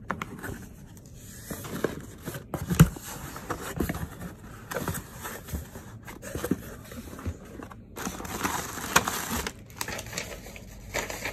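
Cardboard shipping box being opened by hand: packing tape tearing, cardboard flaps and an inner box handled, and plastic air-pillow packing crinkling. A sharp knock stands out about three seconds in, and the rustling thickens near the end.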